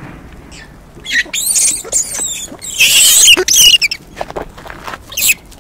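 Japanese macaques giving shrill, wavering squeals and screams, a run of them from about a second in, loudest around three seconds in, and one more short squeal near the end.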